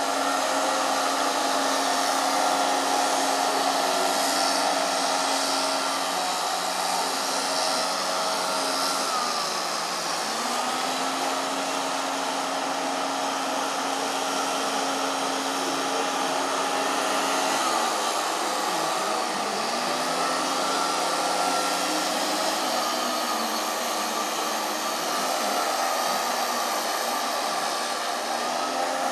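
Loud motorised machine running with a steady whine. Its pitch drops and climbs back up about ten seconds in, and again near twenty seconds, as the motor slows and speeds up.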